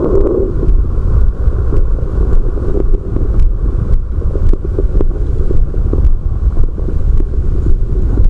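Stomach growling and gurgling after a carbonated drink: a steady low rumble with irregular bubbly gurgles and small pops. The strongest gurgle comes right at the start.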